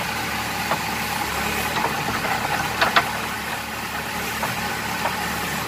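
Backhoe loader's diesel engine idling steadily, heard from the cab, with a few sharp clicks or knocks, the loudest two about three seconds in.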